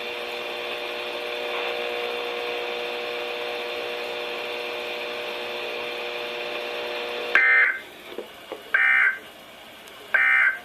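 Weather radio receiver giving a steady hiss with a low hum for about seven seconds after the voice ends. Then come three short, loud bursts of high-pitched data tones about a second and a half apart: the Emergency Alert System end-of-message code that closes the warning broadcast.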